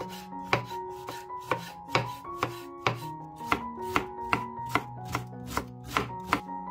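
Chef's knife shredding red cabbage on a bamboo cutting board: a steady run of chopping strokes, about two and a half a second.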